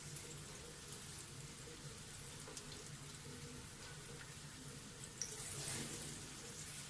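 Banana fritters frying in hot oil: a steady, faint sizzle with scattered small pops. About five seconds in there is a sharp click, then the sizzle swells briefly.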